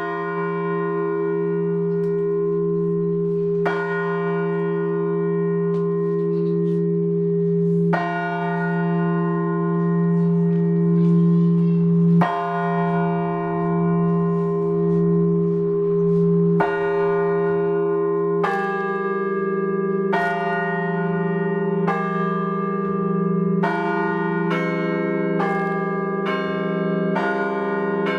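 Festive Russian church bell ringing by a bell ringer. Heavy bell strokes come about every four seconds, each left to ring on. After about 18 seconds more bells join in and the strokes come faster, roughly one a second.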